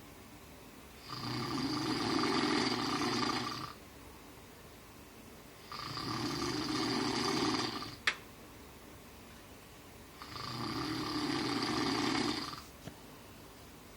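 Snoring in a slow rhythm: three long, rasping snores, each about two seconds, roughly four and a half seconds apart. A single sharp click comes just after the second snore.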